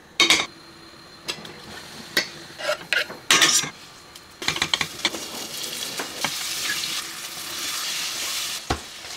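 A few clinks and knocks of utensils and food against a stainless steel sauté pan on a gas hob. Then, from about four seconds in, a steady sizzle of garlic, then artichokes and olives, frying in hot olive oil, with the odd scrape and clink of stirring.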